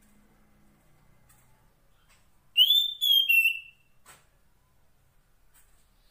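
Female Oriental magpie-robin (kacer poci) giving a short, loud call of about three quick whistled notes, each dropping slightly in pitch, about two and a half seconds in and lasting about a second. This is the call a female uses to summon a male. A few faint clicks are heard around it.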